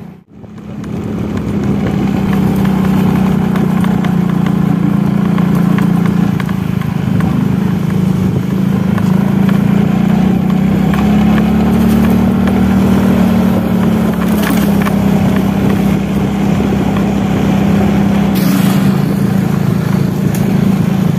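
Motorcycle engine running steadily while riding along a road, a constant low hum that holds for the whole stretch after a momentary gap at the start.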